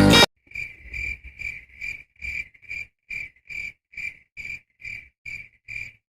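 Cricket chirping: an even series of short, high chirps, about two to three a second, cutting in abruptly after music stops. This is the stock 'awkward silence' cricket sound effect of comedy edits.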